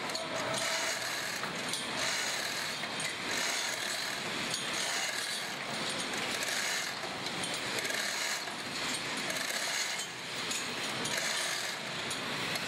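Manual chain hoists being worked to lift a load: a continuous clatter of chain links and ratcheting clicks.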